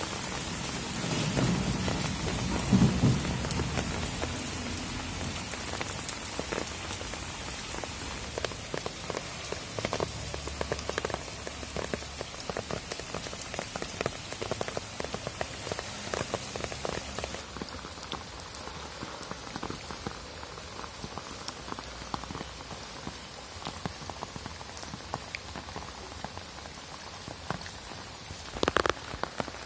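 Steady rain falling, an even hiss with the patter of individual drops. A low rumble in the first few seconds is the loudest part.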